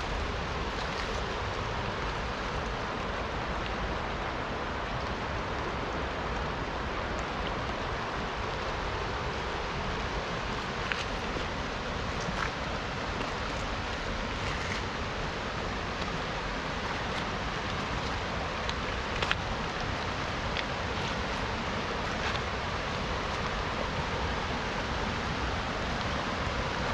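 Steady rush of river water mixed with rain, with scattered sharp ticks of drops.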